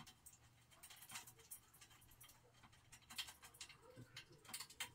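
Faint, irregular metal clicks and ticks as an M6 bolt with washers is fitted and turned by hand into the top corner of a steel rack frame, coming more often near the end.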